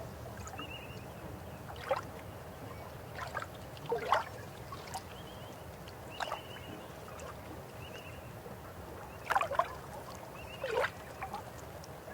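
Steady flowing river water with birds chirping: short high chirps recur throughout, and louder, sharp falling calls come about two and four seconds in and twice near the end.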